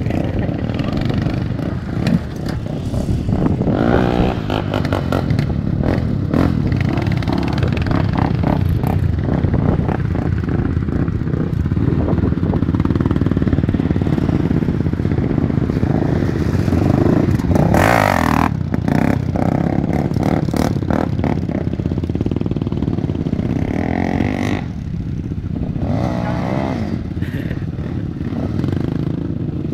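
Sport quad (ATV) engines running and revving hard over and over, the pitch rising and falling with each throttle blip as riders pull wheelies.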